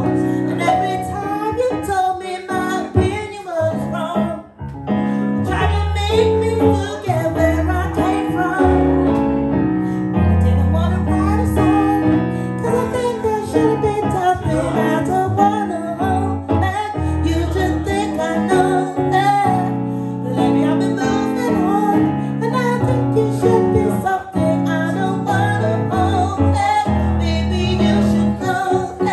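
Live cover song: a woman singing over instrumental accompaniment with a steady bass line.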